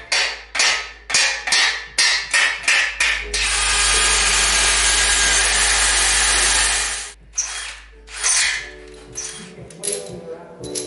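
A run of short scraping strokes, about two to three a second, then a cordless drill running steadily for about four seconds before cutting off, followed by more irregular scraping.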